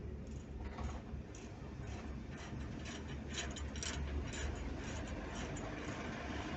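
Inside a car's cabin while driving slowly: a steady low rumble of engine and road, with irregular light clicks and rattles, thickest in the middle.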